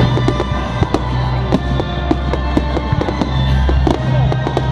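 Fireworks going off in a rapid, irregular string of bangs and crackles, over music with a steady low bass line.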